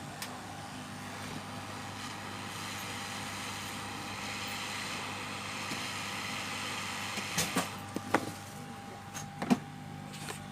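Hot-air rework station blowing a steady hiss over a circuit board to melt the solder of a charging port, over a low hum; a few sharp clicks of tools on the board follow, the loudest about nine seconds in.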